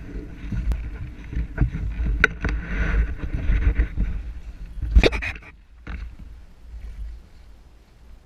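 Wind buffeting a helmet-mounted GoPro's microphone, with several sharp knocks and rubs as the helmet is handled and set down; the loudest knock comes about five seconds in, after which the wind noise drops.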